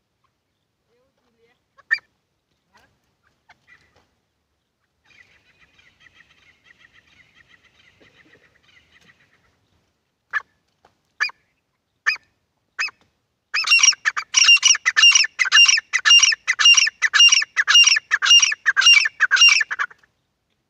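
Grey francolin (titar) calling: a few single notes and a soft chatter, then four spaced loud calls that break about two-thirds of the way in into a fast, even run of loud repeated calls, about three a second, which stops just before the end.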